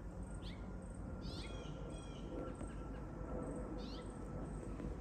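Parent songbirds guarding the area around their nest give short chirping calls, a few a second at times, some sliding down in pitch, over a low steady background noise.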